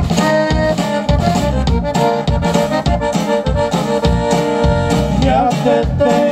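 Live conjunto band playing, led by a button accordion's held and moving chords, with guitar and drum kit keeping a steady beat.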